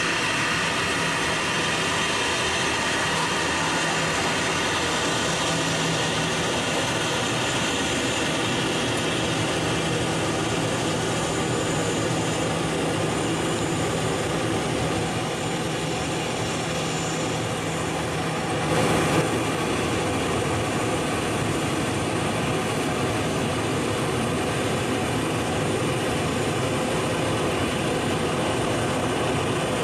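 Jet engines of a taxiing Boeing 737 running at low thrust: a steady rushing noise with a low hum, broken by a short louder burst about two-thirds of the way through, after which the hum drops out.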